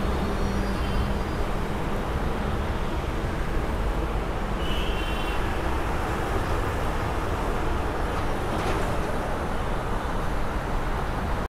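Mumbai Metro train running, a steady rumble with no change in level.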